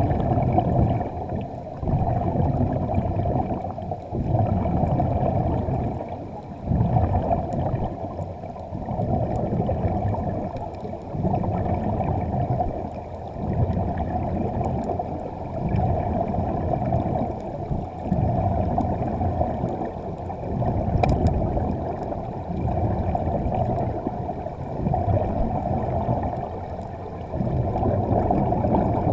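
Muffled underwater rumble and bubbling of air from diving gear, heard through a camera's underwater housing, swelling and fading in waves every two seconds or so.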